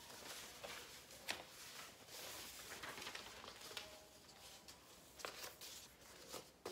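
Faint rustling and scratching of pens on construction-paper sheets as they are written on and lifted, with a few soft taps and clicks.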